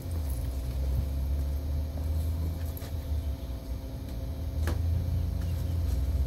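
Steady low rumble with a constant hum, and two sharp clicks, about three and almost five seconds in.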